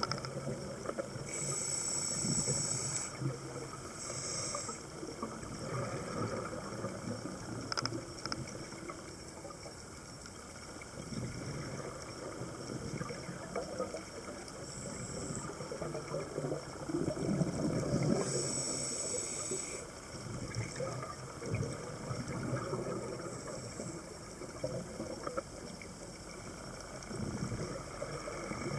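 Scuba regulator breathing underwater: short hissing inhalations alternating with low, bubbling exhalations.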